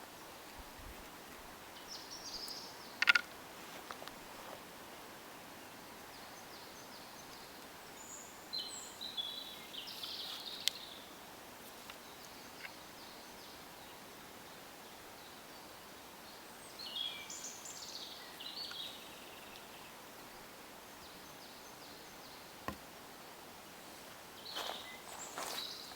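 Outdoor ambience: small birds chirping in short bursts every several seconds over a steady faint hiss, with a few sharp clicks, the loudest about three seconds in.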